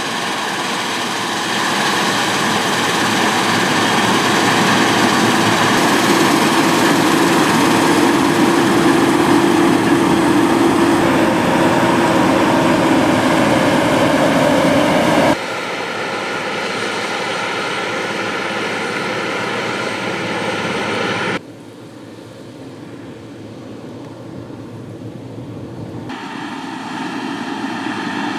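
Engines of a combine harvester and tractor running steadily, with a dense machine hum. The sound drops abruptly about halfway through and again about three-quarters in, then builds back up near the end.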